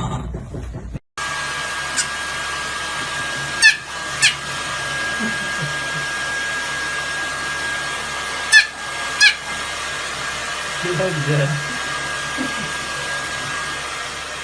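A small electric motor appliance, like a hair dryer, running steadily with a constant high whine. Four sharp short chirps come in two quick pairs.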